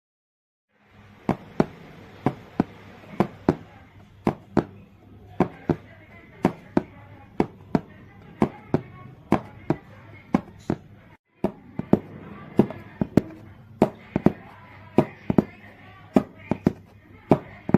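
Knocks on a cardboard box imitating heart sounds, in close lub-dub pairs about once a second, made to demonstrate normal first and second heart sounds and splitting of the second sound.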